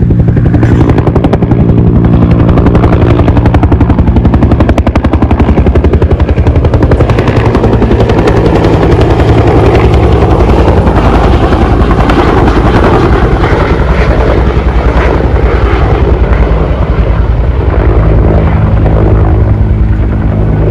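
Huey-type two-bladed firefighting helicopter flying low overhead: loud rapid chop of the rotor blades over a steady engine drone.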